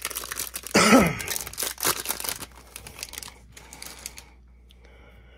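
Trading-card pack wrapper crinkling and tearing as it is ripped open, with dense crackling for the first couple of seconds and a brief louder burst about a second in. It goes much quieter from about four seconds in.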